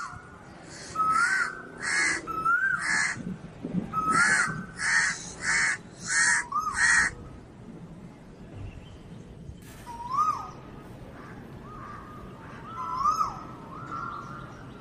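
Crows cawing: a quick run of about eight harsh caws, then a few fainter, spaced-out caws near the end.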